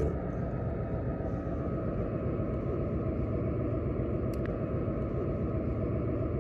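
Steady low rumble with a faint, steady high tone above it.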